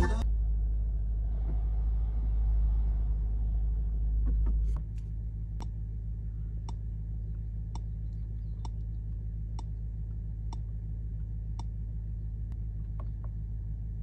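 Light clicks from a Mercedes-Maybach S 580's steering-wheel controls, about one a second starting around five seconds in, as the instrument display is stepped through its styles. Under them a low steady rumble of the stationary car fills the cabin and drops a little as the clicks begin.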